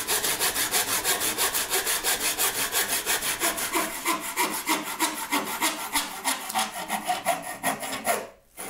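Handsaw cutting a pallet-wood slat with fast, even back-and-forth strokes, several a second, stopping abruptly near the end.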